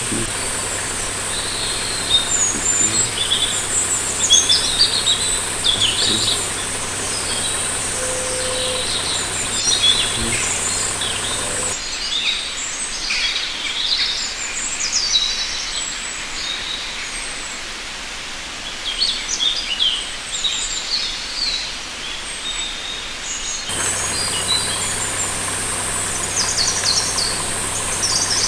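Wild birds chirping and trilling, many short calls one after another, over a steady high-pitched hum and low background noise. The hum and background noise drop out about twelve seconds in and return near the end.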